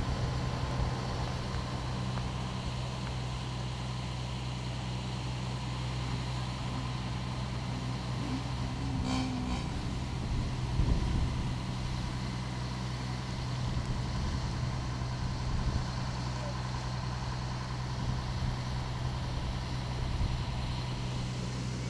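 A large truck engine idling, a steady low drone that runs on unchanged.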